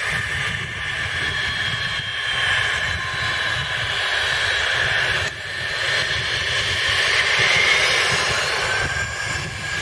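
Twin Pratt & Whitney PW545C turbofans of a Cessna Citation XLS+ (560XL) business jet running at taxi power as the jet rolls toward the listener: a steady high whine over a low rumble, with a brief dip about five seconds in.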